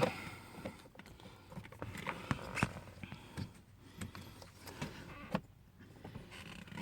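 Faint, irregular small clicks and taps of hands at work, a handful of them spread over several seconds.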